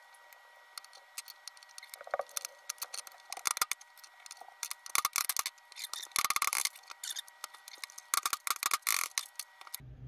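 Metal parts of a Ludwig Speed King bass drum pedal clicking and clinking as it is taken apart on a workbench, in quick, irregular clusters of sharp taps.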